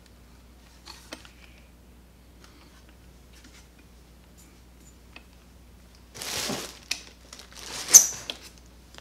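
Handling noise from a Milwaukee M18 Fuel string trimmer power head: a few faint clicks, then rustling and scraping from about six seconds in and a sharp knock near eight seconds as the tool is set down.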